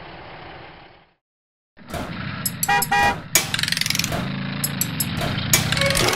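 Cartoon truck sound effects: several short horn toots over a low engine rumble, starting about two seconds in after a brief gap of silence.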